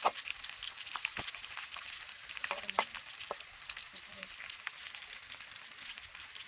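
Crickets frying in hot oil in a pan, a steady sizzle full of fine crackling, with a few sharp clicks and pops scattered through it.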